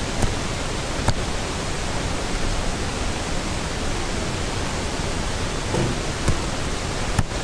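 Steady hiss of microphone and recording noise, with a few faint clicks scattered through it.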